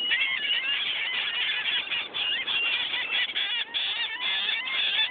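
A large flock of seagulls calling over one another, a dense, continuous jumble of short squawks.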